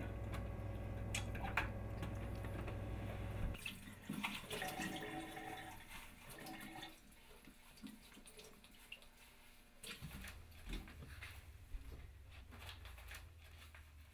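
Dishes being hand-washed at a kitchen sink: running, splashing water and the clink of a pot and dishes, starting a few seconds in after a steady low hum.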